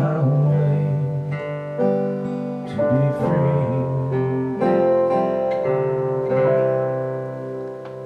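Closing instrumental bars of a song: strummed guitar chords ringing out, a new chord struck every second or two, the sound dying away over the last couple of seconds.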